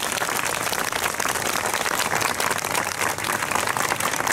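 Crowd applauding, many hands clapping steadily without a break.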